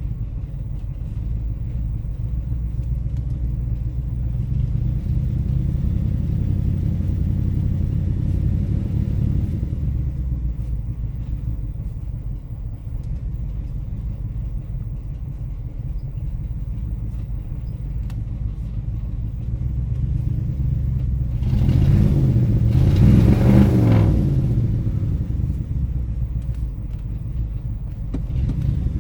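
1977 Ford Thunderbird's V8 engine running at idle after a cold start, a steady low rumble. It revs up and back down once, about 22 seconds in.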